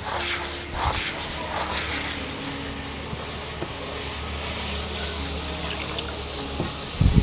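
Hand scrubbing raw red rice grains in an aluminium basin for washing, with a few rustling strokes, then water running into the basin and splashing round the hand, growing from about halfway. A low thump near the end.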